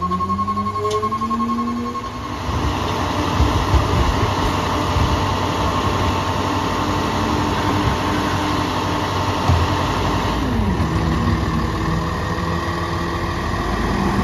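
Peterbilt 337 rear-loader garbage truck with a New Way Viper body running its hydraulic packer: the diesel revs up over the first two seconds while the body-full warning beeps steadily, and the packing noise runs at raised engine speed until the revs drop back to idle about ten seconds in. The beeping signals that the body has reached maximum capacity.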